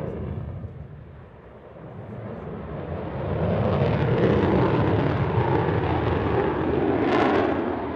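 Noise of a Belgian Air Force F-16 Fighting Falcon's jet engine in afterburner as it climbs away. It dips about a second in, swells from about two seconds in and stays loud, and turns briefly sharper near the end.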